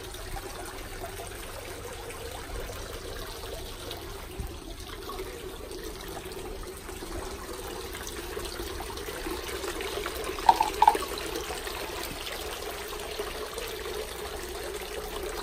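Water trickling steadily from the spout of a shrine's temizuya hand-washing basin. Two short high-pitched sounds come close together about ten seconds in.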